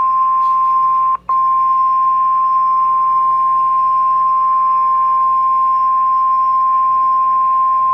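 NOAA Weather Radio's 1050 Hz warning alarm tone: one loud, steady, pure tone with a very brief dropout about a second in. It is the alert that a warning, here a tornado warning, is about to be broadcast.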